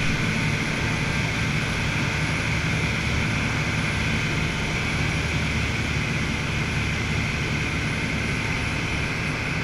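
Dive boat's engine running steadily at speed, heard from inside the covered cabin, with the rush of water and wind along the hull.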